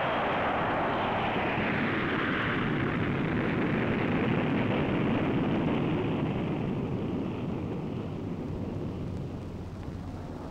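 Jet roar of a B-52 Stratofortress's eight turbojet engines at takeoff power as it climbs out, fading gradually over the last few seconds.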